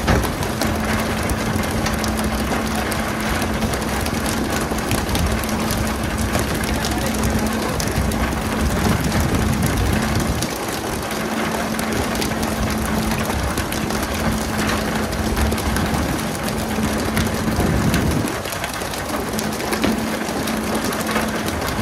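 Fishing boat's engine running with a steady hum under a constant hiss of rushing or spraying water.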